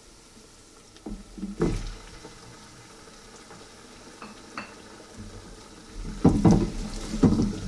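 Raw chicken pieces dropped into hot ghee and onions in an aluminium pot, landing with a couple of thuds a little over a second in, followed by a low sizzle of frying. From about six seconds a wooden spoon stirs, scraping and knocking against the pot.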